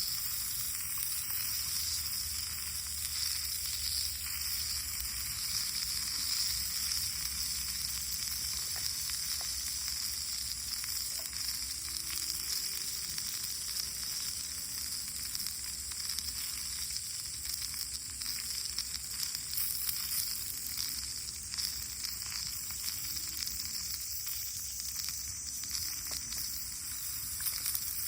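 Food sizzling and frying in a pan, a steady high hiss with light crackling.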